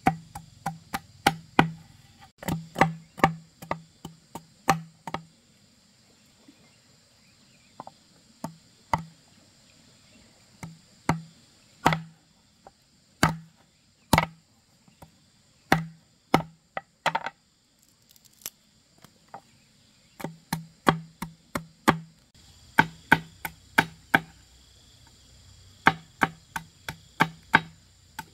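Cleaver chopping and trimming a thin stick held against a bamboo tube: sharp wooden knocks in quick runs, spaced out and sparser through the middle stretch.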